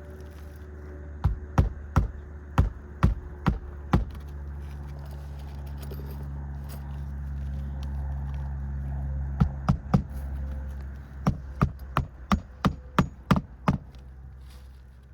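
Hammer driving roofing nails into asphalt shingles: quick series of sharp strikes, about seven in the first four seconds, three more about halfway through, then about eight in a row near the end. A low steady rumble swells underneath in the middle.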